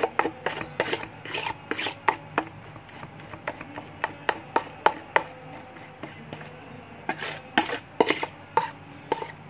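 A plastic-gloved hand stirring and working thick lotion cream mixed with powder in a large metal basin: repeated rubbing, scraping strokes, a few a second, with a couple of short pauses.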